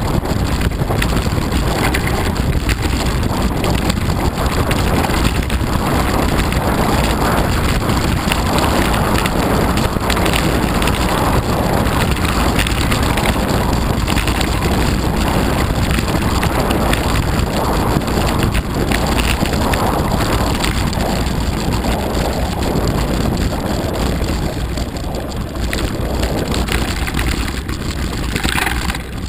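Mountain bike riding fast downhill over packed snow, its tyres and frame rumbling, with wind buffeting the camera's microphone. The noise stays steady and loud throughout.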